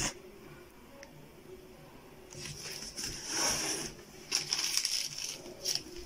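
Crinkly rustling of an aluminium foil cake tray being handled and turned on the table: a spell of rustling about two seconds in, then a run of sharp crackles near the end.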